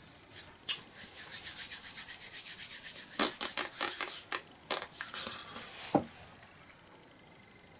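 Hands rubbing briskly palm against palm, a rapid dry swishing from about a second in until about four and a half seconds. A few scattered soft clicks follow.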